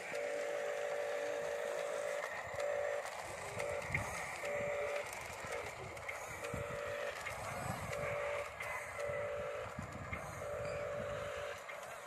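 Electric motors of radio-controlled Huina construction models whining and switching on and off in short runs as the controls are worked, with a lower rumbling and rattling in the middle stretch.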